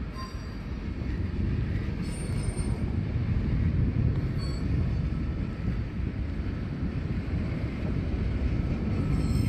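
Long Alaska Railroad freight train of container cars rolling past, the cars making a steady low rumble. A few brief, faint high wheel squeals come through: about two seconds in, near the middle, and at the end.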